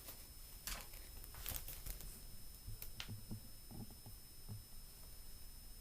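Faint scattered clicks and rustles with a few soft low knocks, like handling noise in a small room.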